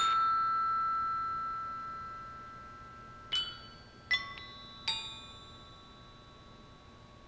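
Glockenspiel: a loud struck chord of metal bars at the start, left to ring and slowly fade, then three single notes struck about a second apart, each ringing on.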